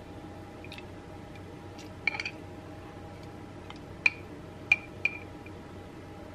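A few light clinks of a utensil against a glass jar as banana peppers are fished out: a quick cluster about two seconds in, then single clinks spread over the next few seconds.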